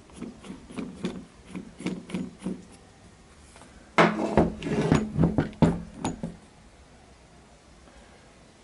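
Cast-iron lathe tailstock being handled: a run of light metallic clicks and knocks as its clamping nut is worked by hand, then louder clunks with a brief ringing rattle about four seconds in as the tailstock is tipped and set down.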